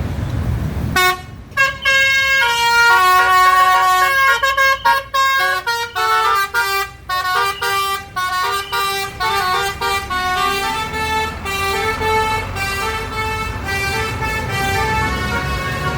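A bus's Basuri telolet horn playing a fast multi-note tune. It starts about a second in over low engine and traffic rumble, with the notes changing several times a second.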